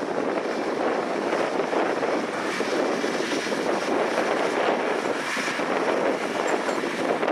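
John Deere 8295R tractor's six-cylinder diesel running under load as it pulls a stalk puller/chopper through cotton stalks, a steady noisy drone that comes closer as the tractor nears.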